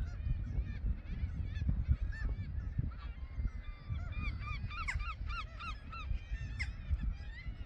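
Seabird colony calling: many birds give short, arched, honking calls at once, overlapping into a continuous chorus that is busiest about four to five seconds in. A low rumble runs underneath.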